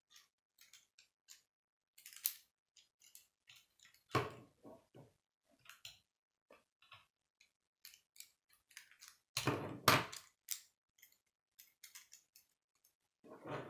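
Plastic K'nex pieces clicking and rattling as they are handled and snapped together, a string of small irregular clicks. Louder knocks and clatter come about four seconds in and again around ten seconds.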